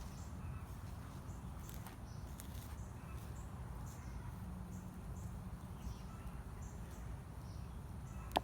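Faint insect chirping in short, evenly spaced high pulses over a low steady hum, with a few soft rustles and clicks as hands work through soil.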